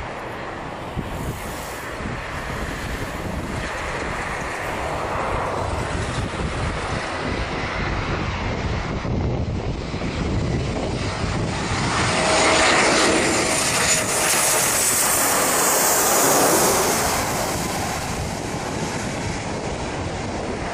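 Airplane engine noise with wind on the microphone, swelling to its loudest about twelve to seventeen seconds in, then easing off, like an aircraft passing overhead.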